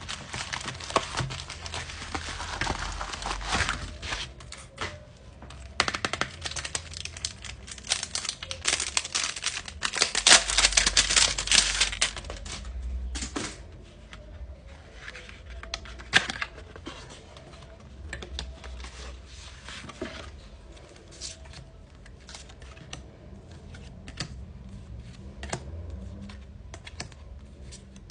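Album packaging being unwrapped and handled: plastic wrap and paper crinkling and tearing in two busy stretches, the first in the opening seconds and the second from about eight to twelve seconds in, then scattered light taps and clicks as the contents are handled.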